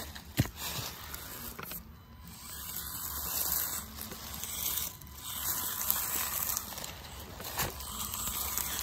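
Axial SCX24 mini RC crawler's small electric motor and gears whirring as it crawls over rocks, its tyres crunching and rustling through dry leaves, with a few sharp clicks.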